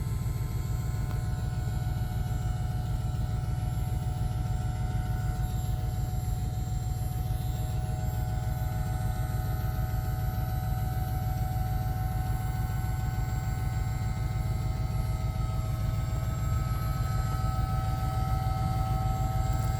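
An engine running steadily as a low drone, with a faint whine above it that rises slightly near the end.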